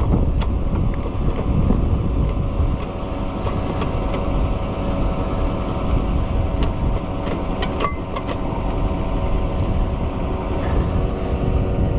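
Farm tractor engine idling steadily, with a few light clicks and knocks.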